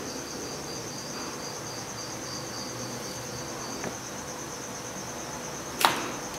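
A steady high-pitched pulsing trill in the background, with a single sharp click near the end.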